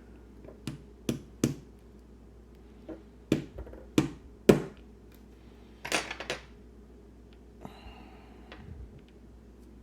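Small, sharp metal clicks and taps, about a dozen of them coming irregularly with a quick cluster near the middle, as tweezers work springs out of a disassembled Sargent Keso dimple lock; a soft scraping follows near the end.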